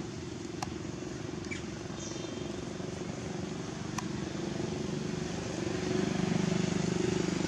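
A motor engine running steadily at idle, a little louder from about six seconds in, with two short sharp clicks.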